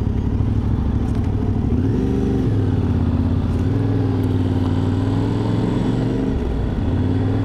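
Yamaha Ténéré 700's parallel-twin engine running at low road speed, rising in pitch about two seconds in as the bike pulls out of a turn, then holding steady.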